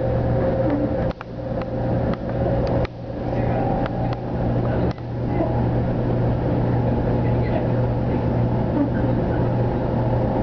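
Interior running noise of a Shinkansen bullet train at speed: a loud, steady rumble and hiss with a low hum. In the first half it is broken by a few short clicks, each followed by a sudden dip in the noise.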